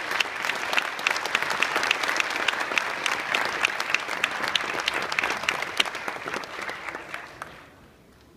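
Audience applause: dense clapping, with single sharp claps from close by standing out, dying away about seven seconds in.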